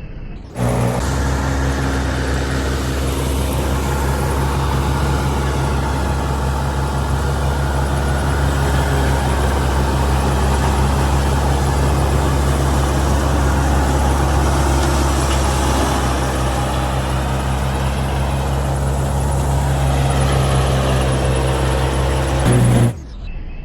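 Old combine harvester running steadily at close range: a diesel engine's low steady hum under a dense mechanical clatter from the machinery. It starts abruptly about half a second in and cuts off suddenly near the end.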